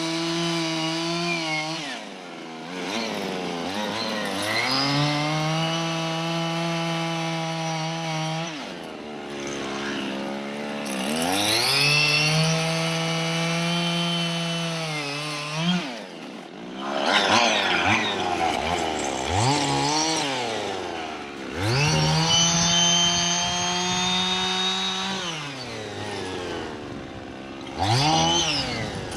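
Husqvarna 55 two-stroke chainsaw cutting a small pine, the throttle opened and released over and over: the engine climbs to a high steady pitch for a few seconds at a time, then drops back toward idle. Near the end come several short quick revs.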